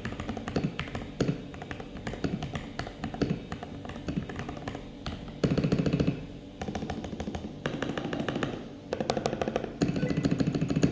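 Typing on a mechanical keyboard with lubed MMD Panda tactile switches, XDA keycaps and a foam-lined rubber case: separate keystrokes at first, then from about halfway, bursts of very rapid key presses about a second long each.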